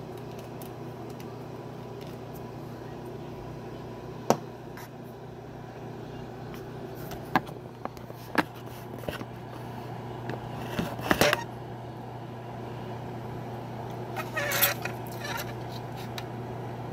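A steady low hum, with a handful of sharp clicks and light knocks of small objects being handled on a hobby workbench, the loudest cluster about eleven seconds in.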